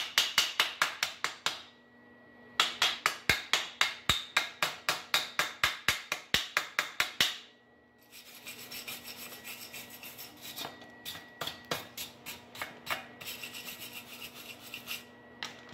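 Quick back-and-forth hand scraping on a metal exhaust pipe, about five strokes a second. It comes in two loud runs with short pauses between them, then continues more softly through the second half.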